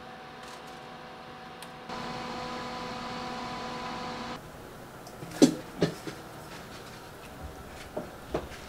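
Sweet potato leaves simmering in a pan of water: a steady hiss over a low hum, which cuts off sharply about four seconds in. Then a few sharp clicks and knocks, the loudest about five and a half seconds in, and two more near the end as a plastic spoon works a mound of cooked rice.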